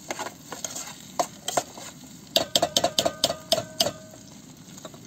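A metal spoon scraping and clinking against a small stainless-steel saucepan while stirring frying potatoes. There are scattered clicks, then a quick run of about eight taps in the middle that leave the pot ringing, over a faint sizzle.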